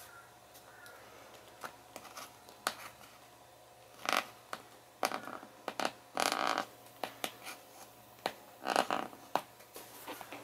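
Craft knife (X-Acto) blade scraping dried glue off a paperback book's glued spine: a run of short scrapes with light clicks and taps between them.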